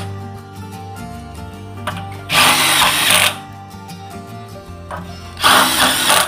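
Ridgid R87207 18V cordless impact wrench hammering as it drives large screws, in bursts of about a second each: two in full, a few seconds apart, with the tail of another at the very start.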